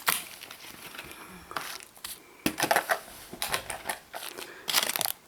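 Plastic toy packaging being opened and handled: irregular crinkles and sharp clicks of plastic, with the main bursts about 1.5, 2.5, 3.5 and 4.7 seconds in.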